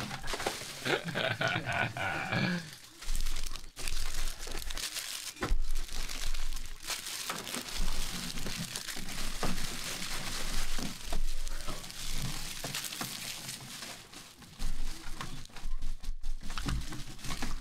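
Foil trading-card pack wrappers crinkling and crackling as a handful of packs is picked up and handled, with scattered sharp crackles.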